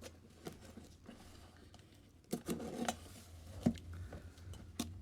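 Hands prying and pulling at a cardboard shipping box to get it open: scattered scrapes, rustles and sharp clicks, with a short burst of scraping about two and a half seconds in, over a low steady hum.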